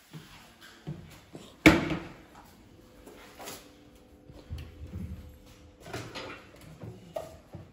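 Handling noises in a small room: one sharp knock about two seconds in, the loudest sound, then scattered softer knocks and brushing sounds.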